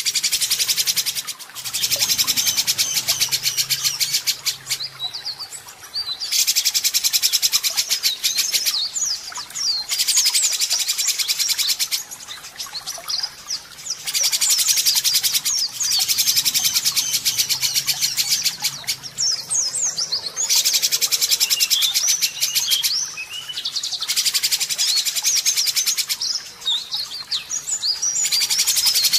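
White-rumped shama (murai batu) singing. Loud, harsh rapid-fire rattling bursts of one to two seconds each (the 'tembakan kasar') alternate with shorter whistled glides and trills in between.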